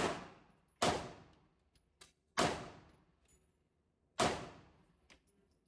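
Four gunshots from the indoor range's lanes, a second or two apart, each echoing and fading, with a couple of faint clicks between them.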